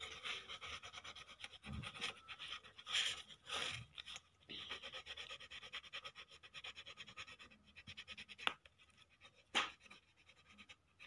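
Colour pencil scribbling on paper in quick, short back-and-forth strokes while a printout is coloured in, with a few sharper taps in the second half.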